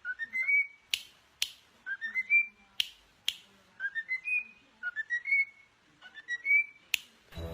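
A bird whistling a short phrase of quick notes that step upward in pitch, repeated about five times, with a few sharp clicks in between.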